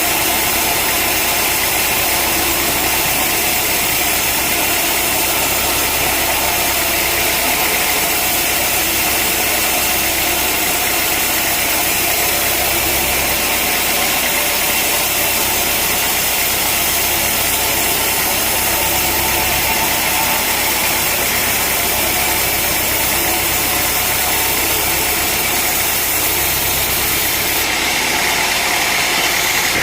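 A sawmill's engine running steadily at an even speed, a continuous mechanical drone without breaks.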